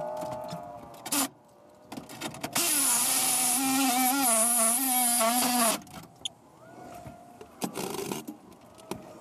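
Black & Decker cordless reciprocating saw cutting into an Airstream trailer's rusted steel frame. The motor winds down at the start and fires in a few short bursts, then makes one long cut of about three seconds whose pitch wavers under load, with shorter bursts near the end.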